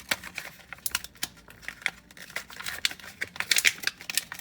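Plastic toy packaging crinkling and tearing as it is opened by hand, a busy run of irregular crackles and rustles that grows busiest a little past the middle.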